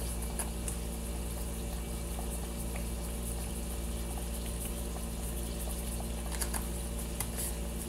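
Onion-tomato masala paste sizzling as it fries in oil in a kadai, a fine steady crackle over a steady low hum, with a few light clicks near the end.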